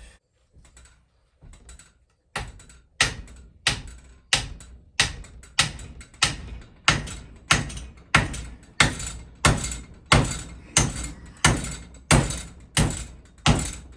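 Hammer blows driving a wedge down into the top of an axe handle to lock the head on: a few light taps, then steady, even strikes about one and a half a second from about two seconds in.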